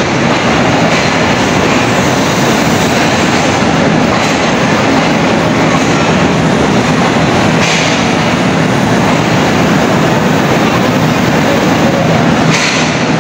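Pakistan Railways passenger train rolling past along the platform: a loud, steady rumble of coach wheels on the rails, with a few faint clacks.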